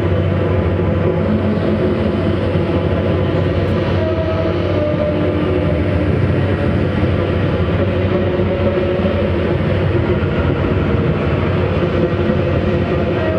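Live band playing a loud, dense drone: sustained held tones over a heavy low rumble, with no breaks or pauses.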